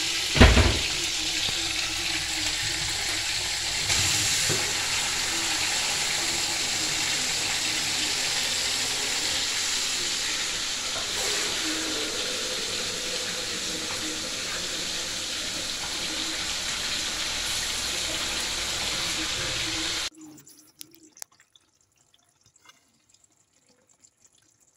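Fish pieces frying in hot oil in a stainless-steel pan: a loud, steady sizzle with a sharp knock about half a second in. The sizzle cuts off abruptly about twenty seconds in, leaving near quiet with a few faint clicks.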